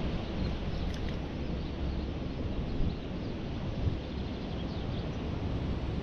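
Steady outdoor noise of running river water, with a low rumble of wind on the microphone and a couple of faint knocks.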